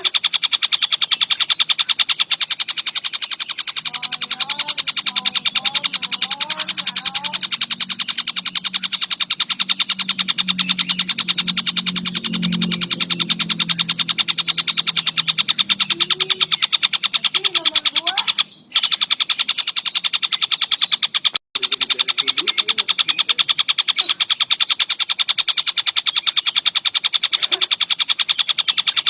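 Stork-billed kingfisher calling continuously in a fast, unbroken rattling chatter, very many notes a second. The sound cuts out briefly twice past the middle.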